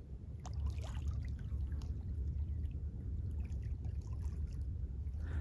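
Small waves lapping and trickling over a pebble beach, with faint irregular splashes over a steady low rumble.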